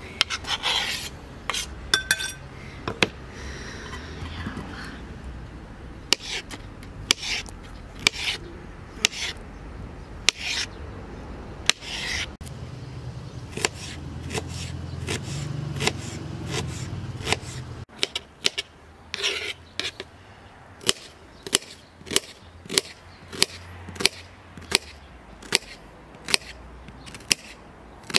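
Kitchen knife cutting on a plastic cutting board: scraping strokes and scattered sharp taps, settling in the second half into a steady run of chops about three every two seconds as an onion is cut.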